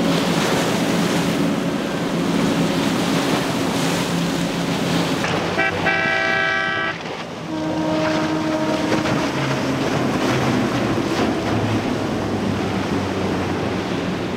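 Multi-outboard center-console boats running hard through choppy water: a steady engine drone mixed with the hiss of hull spray and wave wash. About six seconds in, a horn sounds for about a second.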